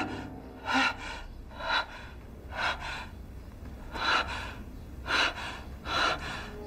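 A woman breathing hard in shocked, ragged gasps, about one breath a second.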